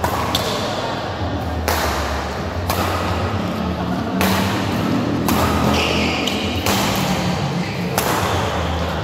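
Badminton rally: racket strings striking a shuttlecock, seven sharp hits roughly one every 1 to 1.5 seconds, each echoing in a large hall, over a steady low hum.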